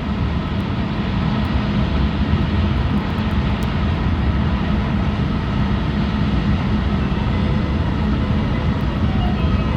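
Running noise of a Tohoku Shinkansen train (E5 and E6 series coupled) at high speed, heard from inside the passenger cabin: a loud, steady, deep rushing noise with no breaks.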